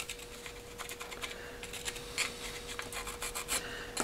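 Carpenter pencil scratching and ticking along paper as it traces around the edge of a cast-iron lathe steady rest, a run of light, irregular strokes. A faint steady hum sits underneath.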